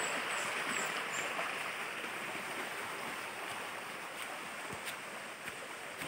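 Shallow stream running over rocks, a steady rushing that fades a little. A few short, faint high chirps in the first second or so.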